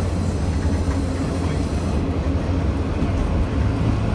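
Steady low rumble of a CPH railmotor ('Tin Hare') running along the track, heard inside its wooden driver's cab, with a steady engine hum under the noise of the wheels and body.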